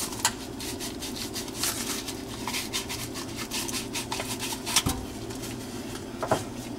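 Gloved hands scraping and rubbing as the old kitchen sink strainer basket is worked free of the drain hole under the sink: a run of small scratchy clicks, with two sharper knocks, one about five seconds in and one near the end. A steady low hum runs underneath.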